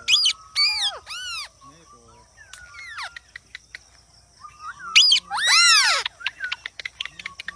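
Indian ringneck parrots squawking: harsh calls that rise and fall in pitch, two near the start and a louder cluster about five seconds in, with short chirps and clicks in between.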